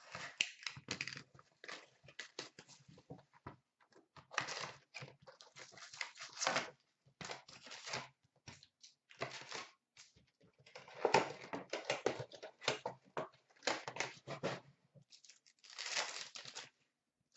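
A cardboard hobby box of card packs being opened and the wrapped packs handled and torn into. It sounds as irregular bursts of crinkling, rustling and tearing, with short pauses between them.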